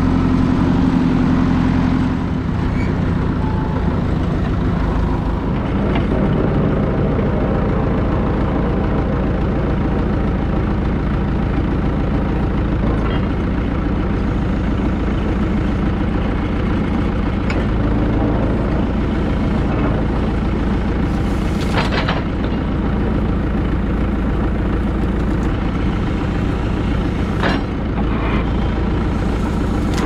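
Old backhoe loader's diesel engine running steadily while the machine drives and works its backhoe arm. A few sharp knocks or cracks sound in the second half.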